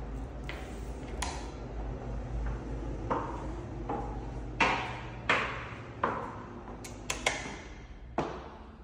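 Footsteps on hard floors in an empty, echoing apartment: sharp clicks, at walking pace through the second half, each ringing briefly in the bare rooms, over a steady low hum.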